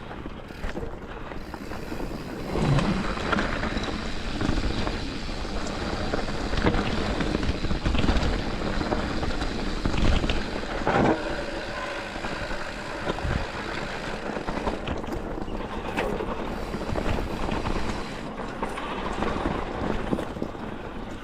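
Mountain bike descending a loose, rocky trail: tyres rolling and crunching over rock with a steady rush of noise and scattered knocks and clatter from the bike hitting rocks.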